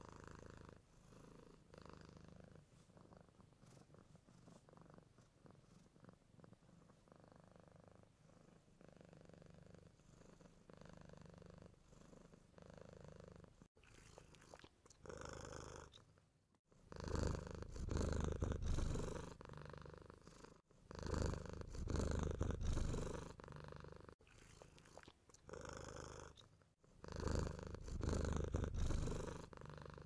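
Sleeping long-haired tabby cat snoring, one breath every two to three seconds: faint at first, much louder from about halfway on. The owner puts the strange snoring down to a cough and bad breathing.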